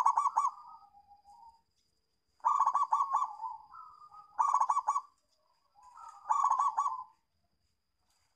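Zebra dove (perkutut) cooing: four phrases of quick, rolling staccato notes, each about a second long, coming every two seconds or so.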